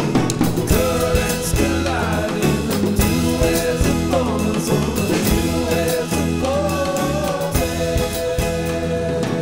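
Background music: a song with a singing voice over drums and a steady beat.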